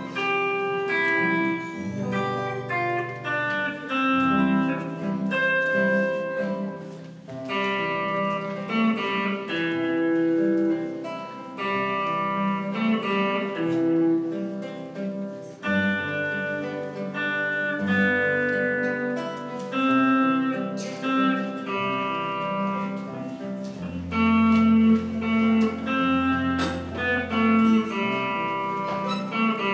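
Classical guitar and electric guitar playing a duet: a run of plucked melody notes over held low notes.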